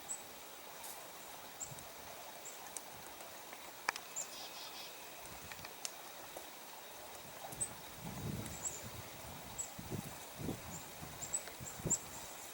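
Downy woodpecker pecking at wood: a few scattered single taps, the sharpest about four seconds in. Short, very high, thin bird calls repeat throughout, and a low rumbling comes in during the second half.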